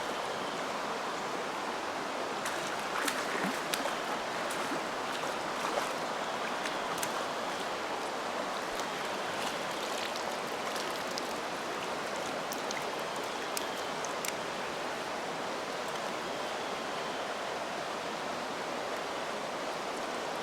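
Creek water rushing steadily over a swift run, with a few faint scattered clicks.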